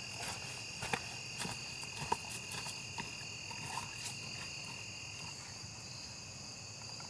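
A chorus of insects trilling steadily in several high pitches, one of the voices dropping out about five seconds in. Light footsteps on grass and dry leaves tick faintly over the first few seconds.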